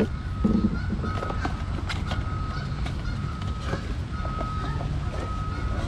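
Light clicks and knocks of drone accessories being handled during an unboxing, over a steady low rumble, with a faint high-pitched tone that comes and goes.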